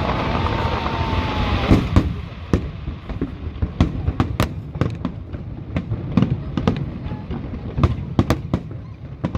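Fireworks display: dense crackling with a whistling tone that falls slightly in pitch over the first two seconds, then a run of sharp bangs and cracks, several a second.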